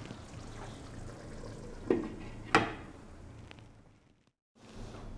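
Beef curry gravy simmering in a karahi, a low steady bubbling, with two sharp clinks less than a second apart about two seconds in. The sound fades out briefly near the end.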